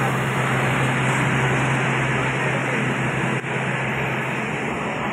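Pakistan Railways passenger train coaches rolling past at close range: a steady rumbling rush of wheels on rails over a steady low hum.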